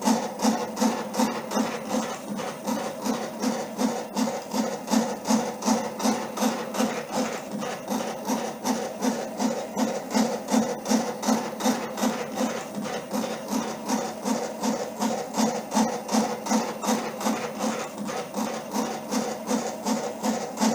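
Stepper motors of a small home-built three-axis CNC machine driving its axes in a steady rhythm of buzzing pulses, about three a second.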